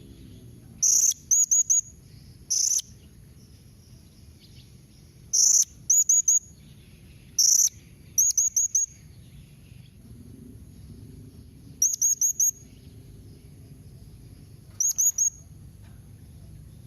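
Blue-crowned hanging parrot (serindit) calling: sharp, high-pitched chirps in groups, each a single note followed by a quick run of three or four short ones, repeated about seven times at irregular gaps. A steady high-pitched buzz runs underneath.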